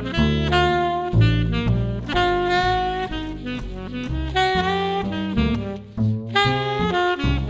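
1968 Selmer Mark VI alto saxophone playing a quick jazz melody line with many short notes, over a bass accompaniment, with a brief break about six seconds in.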